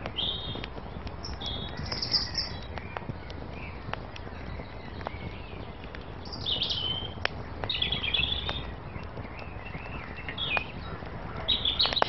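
Wood fire crackling, with scattered sharp pops over a steady low hiss. Small birds chirp in short calls several times, clustering about two, seven to eight and eleven to twelve seconds in.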